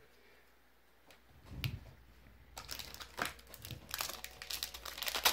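Foil wrapper of a Pokémon booster pack crinkling as it is handled: a soft thump about one and a half seconds in, then a dense run of sharp crackles from about halfway through.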